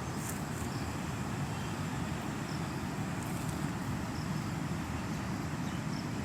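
Steady low outdoor rumble, like distant traffic, with a few faint high chirps now and then.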